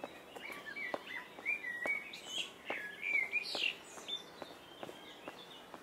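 A songbird singing a quick run of varied, chirping and warbling notes for about three seconds, over steady walking footsteps.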